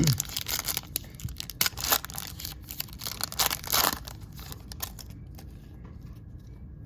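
A plastic trading-card pack wrapper being torn open and crinkled, in a run of crackling bursts over the first four seconds, then quieter handling.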